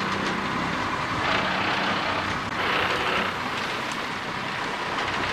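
Sport-fishing boat's engine running steadily under the open-air deck sound, with two short surges of rushing noise, one about a second in and another around three seconds.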